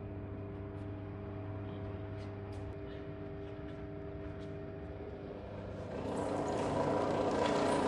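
Electric wire stripping machine running with a steady motor hum and a few faint clicks. About six seconds in it grows louder and noisier.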